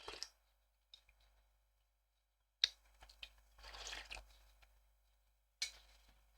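Faint clicks and rustling handling noises: a sharp click about two and a half seconds in, a short scratchy rustle a second later, and another click near the end.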